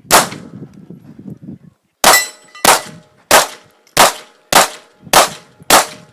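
A 9mm Glock 19 pistol fired eight times: a single shot, a pause of about two seconds, then seven shots in quick succession, roughly one every two-thirds of a second.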